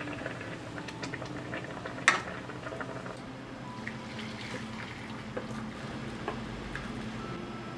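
Cooked apple peels and their syrupy liquid sloshing and pouring from a pot into a metal mesh sieve, with small clinks of metal on metal throughout and one sharp clink about two seconds in.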